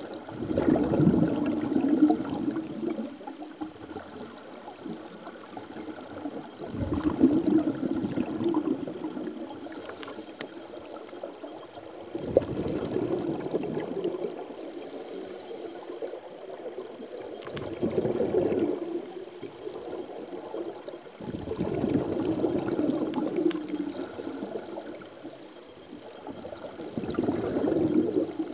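Scuba divers breathing out through their regulators underwater: exhaled air bubbling out in repeated bursts about every five or six seconds, one with each breath out.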